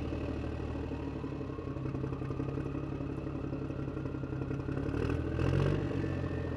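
An engine running steadily, louder for a moment about five seconds in.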